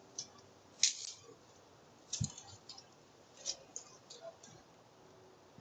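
A string of irregular sharp clicks and light knocks over faint hiss, the loudest about a second in, with a dull thump about two seconds in.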